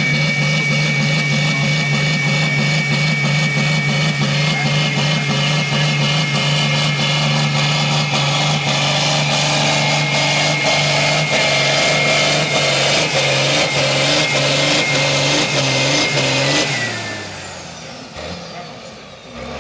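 Valtra 8550 tractor's diesel engine running flat out under heavy load while pulling a sled, with a steady high whistle above the engine note. Near the end the throttle comes off and the engine note falls away.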